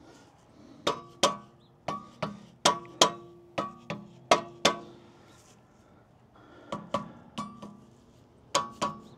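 Parking brake shoe adjuster on a Land Rover LR4/LR3 rear brake being wound out with a hand tool to spread the new shoes as tight as they will go: sharp metallic clicks, each with a short ring. About ten clicks come in the first five seconds, then after a pause of about a second and a half, six more.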